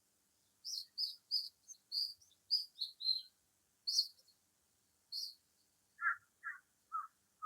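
Wild songbird calling: a quick run of short, high chirps for the first five seconds. Near the end come four lower, evenly spaced calls.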